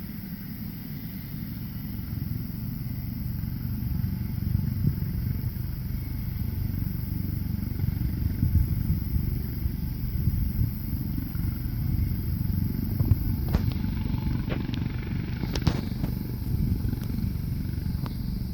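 U.S. Coast Guard helicopter's engines and rotor running, a low rumble that grows gradually louder.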